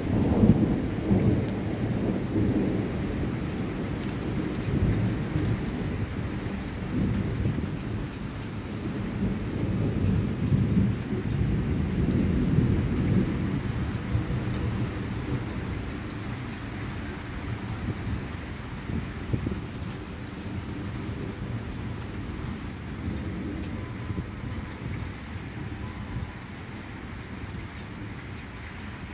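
Thunder rumbling on and on over steady rainfall. The rumble is heaviest in the first half, with swells near the start and again around the middle, then slowly dies away while the rain goes on.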